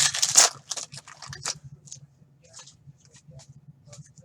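Trading-card pack wrapper crinkling and tearing in a loud burst, then soft scattered rustles and clicks of cards being handled, over a faint steady low hum.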